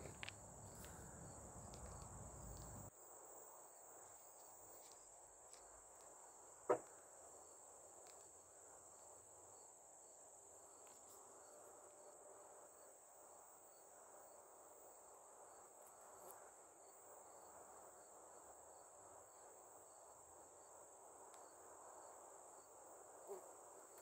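Steady, faint, high-pitched trilling of insects such as crickets, with a low rumble that stops about three seconds in and one sharp click about seven seconds in.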